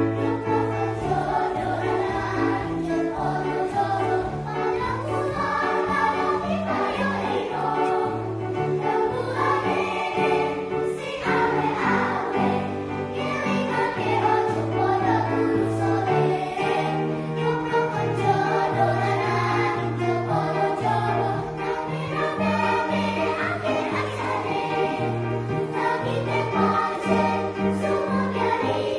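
A choir singing in several voice parts, holding sustained chords as the notes change.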